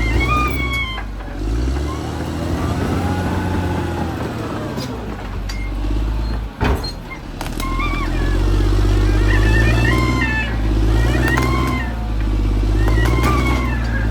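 Caterpillar D6R XL bulldozer's diesel engine working under load, its pitch dipping and rising as the load changes, with a sharp knock about six and a half seconds in.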